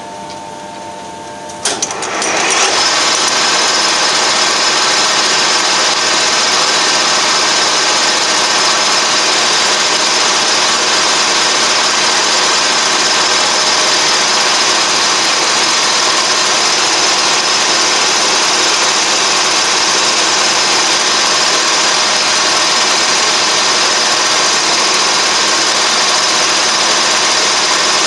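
Colchester Triumph 2000 gear-head lathe: a clunk about two seconds in as the spindle is set going, then the headstock running steadily at speed with a constant high gear whine.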